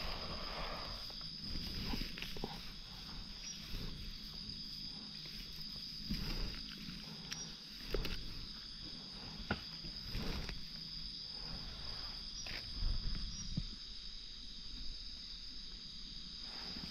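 Steady high-pitched drone of insects, with scattered footsteps and rustling.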